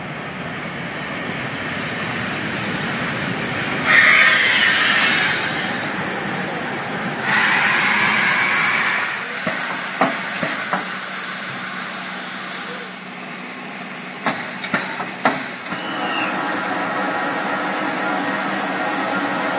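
Class 52 steam locomotive hissing steam, with two louder bursts of hiss about four and seven seconds in. A few sharp knocks come through the middle.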